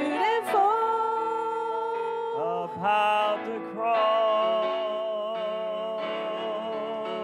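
Mixed vocal ensemble of two women and a man singing long held notes in close harmony with vibrato, over piano accompaniment, moving from one sustained chord to another about three seconds in.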